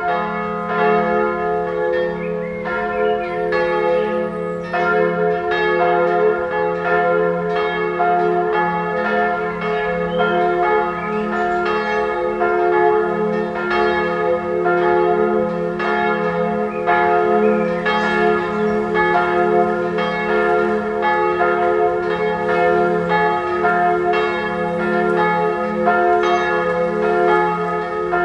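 Full peal of three church bells swinging and ringing together: two 1979 Perner (Passau) bronze bells tuned F and A-flat a minor third apart, with a small B-flat cymbal bell from about 1799 above them. Strikes overlap in a steady, unbroken stream, already in full swing when the sound cuts in at the start.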